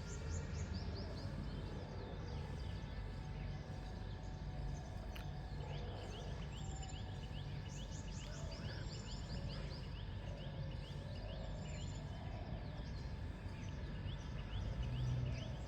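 Birds singing at dawn: repeated trills of short, quick, high notes, over a steady low background rumble.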